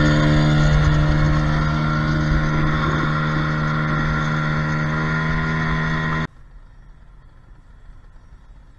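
Boat motor running at a steady pitch while the catamaran is under way, over a rush of wind and water. It cuts off abruptly about six seconds in, leaving a faint hiss.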